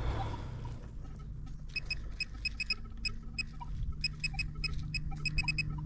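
Metal-detecting pinpointer beeping in short high pips that come in irregular clusters as it is probed over a buried coin, starting about a second and a half in.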